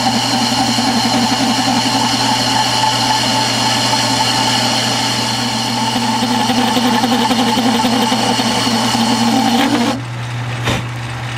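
Metal lathe running, with a steady motor and gear hum, while its cutting tool plunges into the spinning metal bar to cut a shoulder groove. About ten seconds in the higher cutting noise drops away, leaving the low hum.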